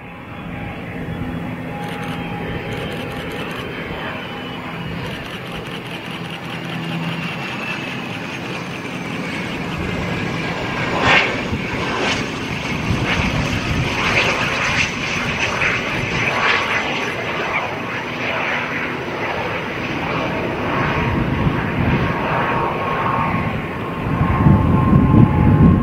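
Small twin-engine business jet landing: a steady jet engine rush with a whine that falls in pitch as it comes in on approach. A few sharp crackles come about eleven seconds in as it touches down, and a louder low rumble follows near the end as it rolls out along the runway.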